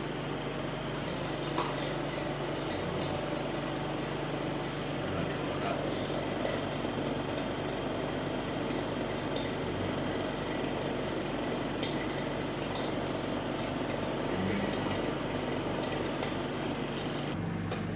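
MELAG Vacuklav 31-B+ autoclave running steadily in its vacuum-drying phase, its vacuum pump humming and pulling the chamber to about -0.86 bar. A single click sounds about a second and a half in.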